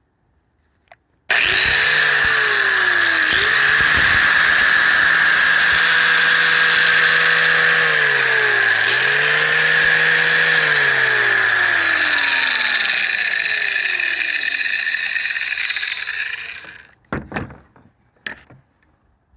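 Mastercraft 6 A angle grinder, rated at 11,000 rpm, switched on and running with a steady high whine for about fifteen seconds, then switched off and winding down. A few clicks follow near the end.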